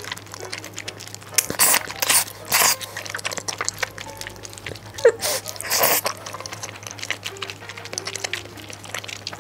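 Close-miked eating sounds: loud mouthfuls about one and a half to nearly three seconds in and again about five to six seconds in, with quieter chewing and small wet clicks between.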